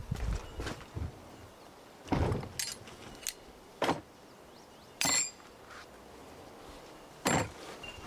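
A handful of separate knocks and clunks a second or two apart, some with a bright metallic clink.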